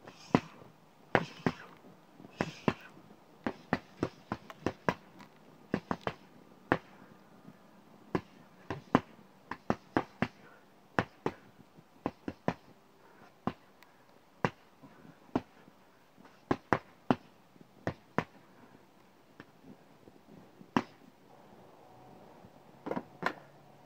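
A speed bag being punched with gloved fists, the bag smacking against a wooden rebound platform: sharp, irregular smacks, often in quick pairs, about one to two a second with short pauses between.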